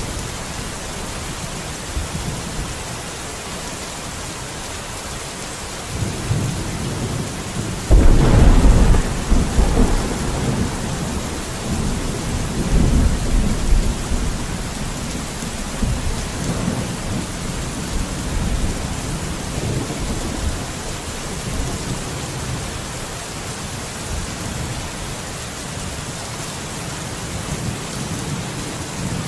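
Steady rain falling with rolling thunder: a low rumble builds about six seconds in, breaks into a loud clap about two seconds later, and rumbles on in waves for several more seconds before fading back under the rain.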